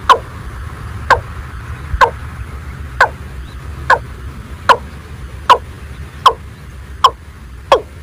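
Watercock calling: a series of short, loud downward-sweeping notes, about one a second and quickening slightly toward the end, over a steady low rumble.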